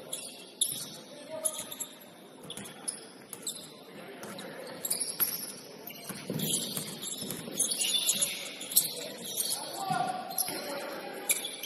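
Gym sounds of a basketball game: a ball bouncing on the court amid shouts and chatter from players and onlookers, the voices growing louder in the second half.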